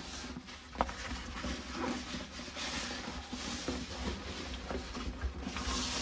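Rummaging through a bag: continuous rustling and small clicks of items being moved and handled, with a louder rustle near the end.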